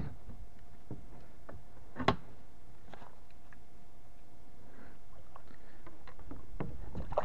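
Gear being handled on a plastic sit-on-top fishing kayak: scattered light clicks and one sharp knock about two seconds in, over a steady low rumble.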